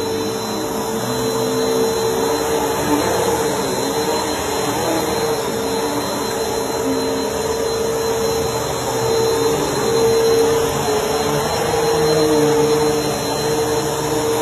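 Bissell PowerForce Helix Turbo upright vacuum cleaner running steadily: a constant motor whine over a rushing air noise, its loudness swelling a little a few times.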